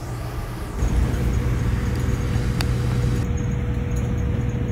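Motor vehicle running: a steady low rumble that gets louder about a second in, with a faint steady hum above it.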